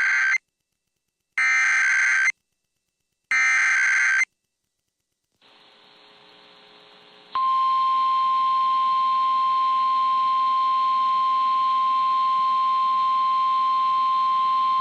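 Emergency Alert System broadcast from NOAA Weather Radio. It opens with three buzzy bursts of SAME digital header data, each just under a second, a second apart. After a few seconds of faint static, the single steady warning alarm tone starts about 7 seconds in, announcing a new warning.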